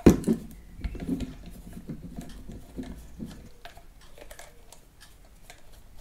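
Small screwdriver turning screws out of the plastic base of a Blue Yeti USB microphone: a sharp click at the start, then small clicks and scrapes of the metal tip in the screw heads and against the housing, thinning out after about three and a half seconds.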